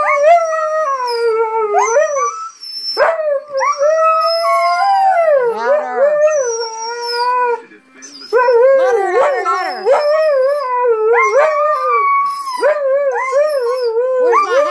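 Siberian husky howling and "singing": long, wavering calls that bend up and down in pitch, with a short break about eight seconds in.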